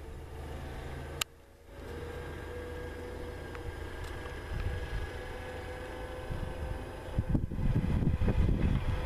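Distant engine of a self-propelled field sprayer running steadily as it drives across the field, with a sharp click and a brief dip in level about a second in. Wind gusts start buffeting the microphone near the end.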